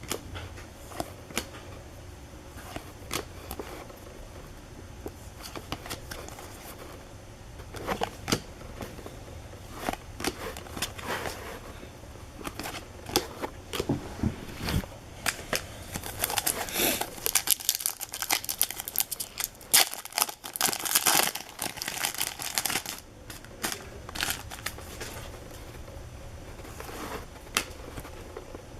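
Baseball card packs being torn open by hand: plastic-foil wrappers tearing and crinkling, mixed with the light clicks and slaps of cards being handled. The crinkling and tearing grows denser and louder about halfway through, then eases off.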